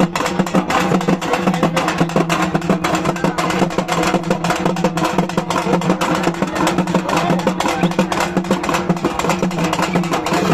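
Fast, continuous drumming with rapid dense beats over a steady low droning tone.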